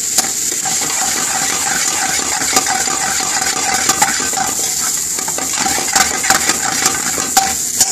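Pilau rice stir-frying in a frying pan with onion, peppers and button mushrooms: steady sizzling under a metal spoon scraping and clacking against the pan as the pan is tossed. The clacks come more often in the second half.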